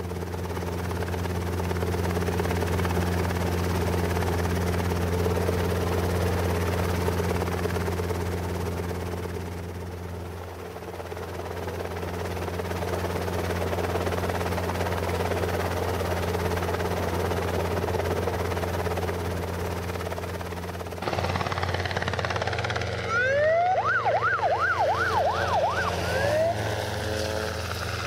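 Helicopter running steadily overhead, a loud, even drone. About three quarters of the way in, the sound changes and a fast siren-like warble rises and falls several times over a few seconds.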